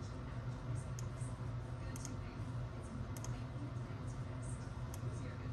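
Computer mouse clicking a handful of times, scattered about a second apart with some quick double clicks, over a steady low hum.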